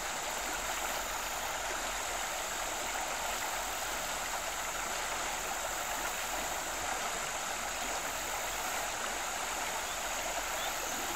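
Shallow rocky creek running steadily over stones.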